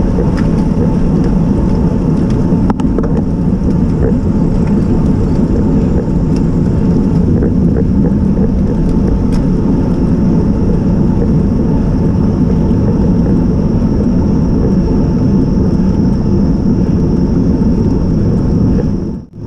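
Steady low rumble of wind and road noise on a bicycle-mounted camera's microphone while riding a road bike uphill in a race pack, with a few faint ticks. The sound briefly drops out near the end.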